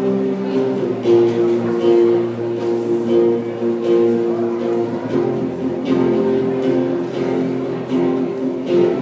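Instrumental worship music: a guitar playing sustained chords, changing every second or so, with no voice.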